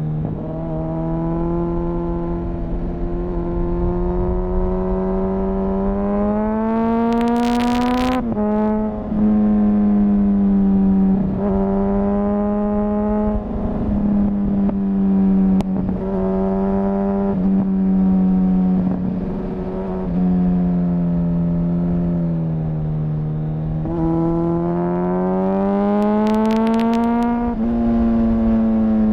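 2004 Honda CBR1000RR Fireblade's inline-four engine, restricted to 35 kW, heard onboard under hard acceleration: the revs climb and drop back at each gear change, about half a dozen times, then build again and ease off near the end. Two short clattering flurries come at the top of the revs, about seven seconds in and again near the end.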